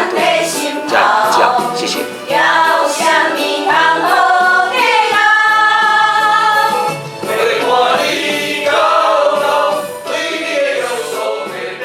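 A song: a singing voice with long held notes over instrumental accompaniment.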